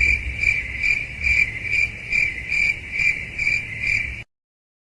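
Stock cricket-chirping sound effect, the 'crickets' clip used to mark an awkward silence: a high chirp repeating about twice a second over a low hum. It cuts off abruptly near the end.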